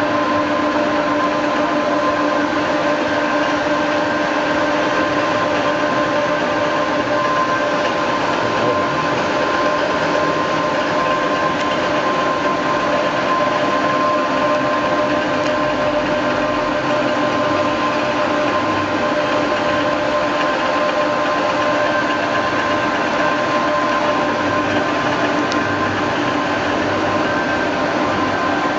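Machinery running steadily: an even hum with several fixed whining tones that hold unchanged throughout.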